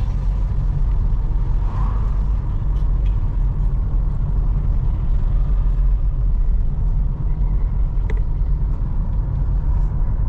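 A car driving, heard as a steady low road and engine rumble that does not let up.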